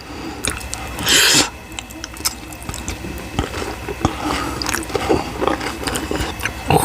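Close-miked eating: a loud bite about a second in, then wet chewing and lip smacking with many small clicks.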